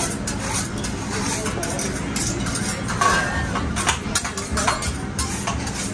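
Metal cooking utensils clanking and scraping on a hibachi griddle, many sharp clinks in quick irregular succession, over restaurant chatter.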